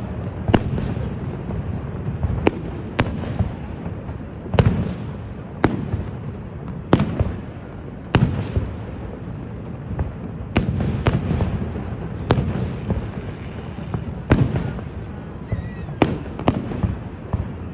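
Aerial firework shells bursting in an irregular string of sharp bangs, roughly one a second and sometimes two or three close together, over a steady low rumble.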